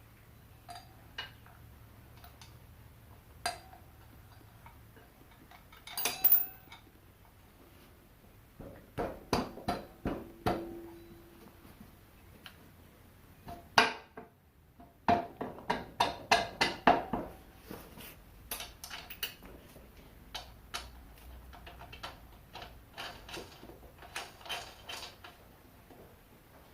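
Metal hand tools and bolts clinking and clicking against metal parts, in scattered single knocks with two quick runs of clicks about 9 and 15 seconds in, as the sprocket and brake caliper are bolted back onto the mini bike's wheel.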